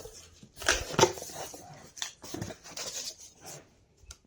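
Packaging of a boxed water dispenser being handled and pulled open: cardboard and packing material rustling and scraping, with a couple of knocks about a second in.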